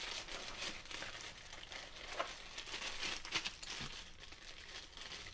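Thin clear plastic bag crinkling and rustling in irregular small crackles as it is handled and pulled open.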